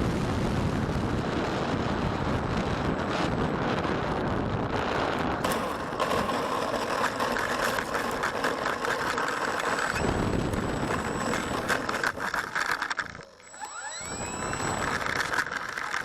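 Electric motor of an E-flite Valiant RC airplane running with a steady high whine over wind noise on the microphone. It drops away briefly near the end, then spins back up with a rising whine.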